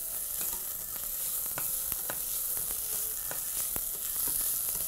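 Diced vegetables and tomato paste sizzling in olive oil in a stainless steel pot as they sauté, with irregular clicks and scrapes of the stirring utensil against the pot.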